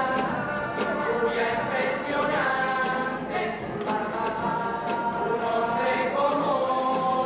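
Cádiz carnival youth chirigota singing together in chorus, accompanied by guitar, with held notes that move in steps.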